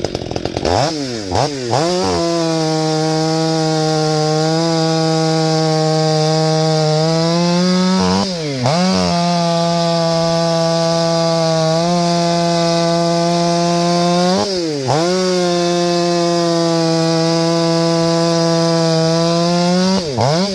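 Stihl 500i fuel-injected two-stroke chainsaw revved up and held high for long stretches. The throttle is let off briefly twice, about a third and two thirds of the way through, with the engine climbing straight back each time, and let off again at the end.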